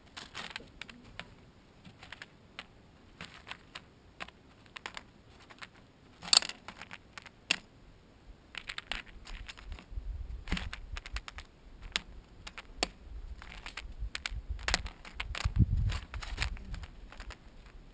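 Steller's jay pecking and rummaging among peanuts in the shell and corn on a metal tray close to the microphone: a run of irregular dry clicks and taps, with low bumping sounds added from about ten seconds in.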